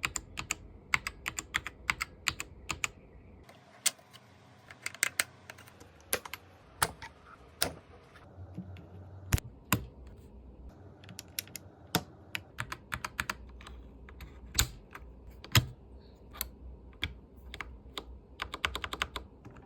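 Mechanical keyboard with red linear switches being typed on: quick runs of keystrokes broken by short pauses, with a few louder single strokes.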